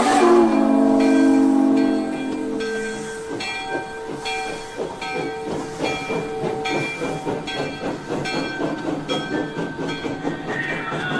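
Sound system of a Broadway Limited model NYC J-1e Hudson steam locomotive: a chime steam whistle held for about three seconds, then the rhythmic chuff and hiss of steam exhaust.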